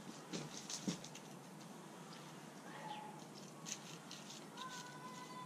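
Faint scratching and scraping of a small hand tool working into mulch and soil, in a few short clusters, most in the first second. A faint steady whistling tone comes in near the end.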